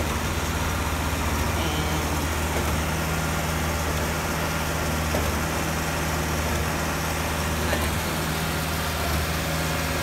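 Heavy diesel engines of a concrete mixer truck and a trailer-mounted concrete pump idling steadily, a low even drone.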